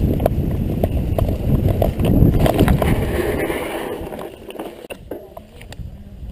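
Mountain bike running over rough trail: a low wind rumble on the microphone with rapid rattles and knocks from the bike, dying down about four seconds in to a few scattered clicks.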